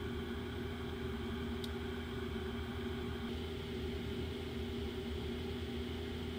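Graphics card cooling fans running at 100% speed: a steady airy whir over a low hum. The NVIDIA GTX 1060 Founders Edition's blower fan gives way about three seconds in to the twin fans of the Gigabyte GTX 1060 G1 Gaming, and the hiss changes slightly.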